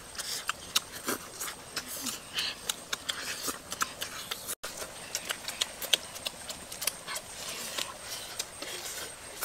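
Irregular sharp clicks and crackles, several a second, with a brief gap about halfway through.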